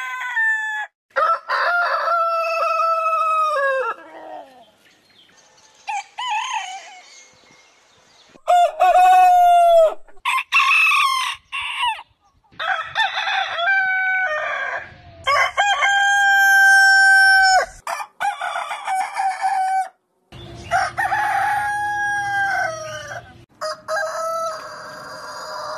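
Several different roosters crowing one after another, about eight crows, each a drawn-out cock-a-doodle-doo that drops in pitch at its end. The crows differ in pitch and length, the longest lasting nearly three seconds.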